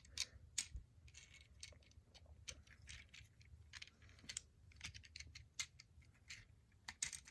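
Plastic Transformers Studio Series 53 Mixmaster figure being posed by hand: faint, irregular clicks and clacks of its joints and parts, many small ones in quick succession.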